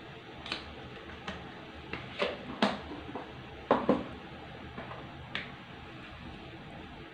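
Scattered light clicks and knocks of kitchen utensils and containers being handled while seasoning the dish, about eight in all, the loudest a little after two seconds and around four seconds in.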